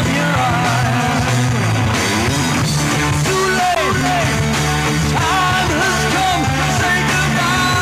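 Live rock band playing, electric guitar, bass and drums, with a male singer's voice over them.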